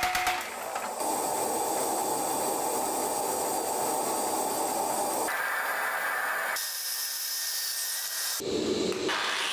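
Steady rasping of abrasive tool work on the workpiece, such as grinding, sanding or filing. It comes in several short edited segments that change abruptly about a second in, just past five seconds, past six and a half seconds and past eight seconds.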